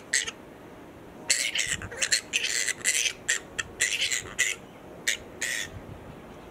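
Harsh, scratchy animal squawks, short calls coming several a second in runs with brief pauses between them.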